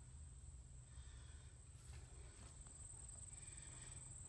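Near silence: a faint low rumble and a steady thin high-pitched whine, with a few faint soft chirps.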